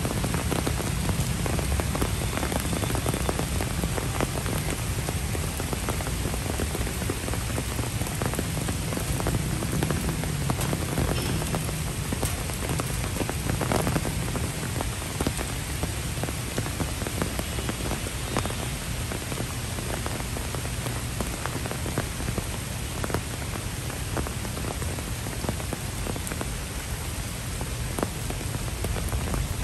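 Steady rain falling on wet paving, puddles and garden foliage, an even hiss with many close drops ticking through it.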